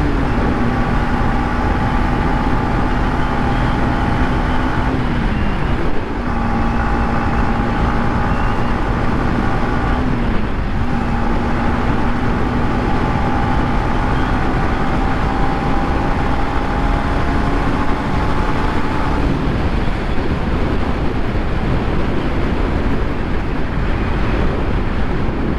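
Yamaha MT-15's 155 cc single-cylinder engine running at a steady cruising speed on its stock exhaust, under heavy wind rush at around 80 km/h. The engine note dips and picks up again twice. After about 19 seconds it fades, leaving mostly wind.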